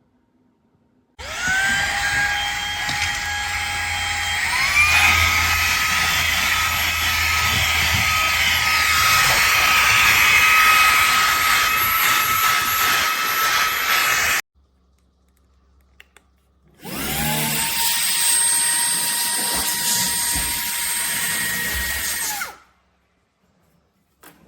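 Fanttik Slim V8 Apex cordless handheld vacuum's motor whining up to speed, stepping up to a higher setting a few seconds later, running, then cutting off abruptly. After a pause of about two seconds it starts again, runs steadily for about six seconds and shuts off.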